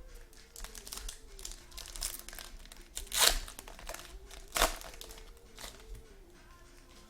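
Wrappers of 2015 Panini Gridiron Kings football card packs crinkling and being torn open, with two louder rips about three and four and a half seconds in.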